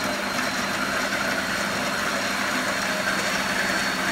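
Electric stand mixer running steadily with its beaters in a bowl of cake batter: a motor hum with a thin, steady high whine over it.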